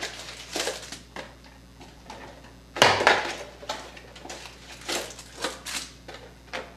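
Trading cards and card packs being handled on a tabletop: a series of short rustles, clicks and taps, the loudest cluster about three seconds in.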